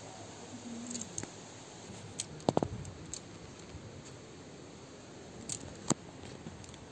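Faint steady background with a few scattered sharp clicks and taps. The loudest is a quick cluster about two and a half seconds in, and two more come near the end.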